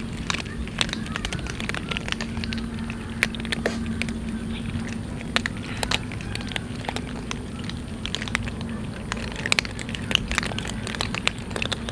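Several cats chewing dry kibble, a run of irregular crisp crunches, over a faint steady hum.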